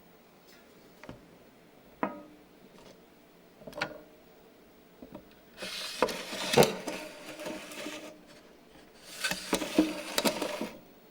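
A few separate knocks, then two spells of rough scraping or rubbing against a hard, wood-like surface, each about two seconds long with small knocks inside it.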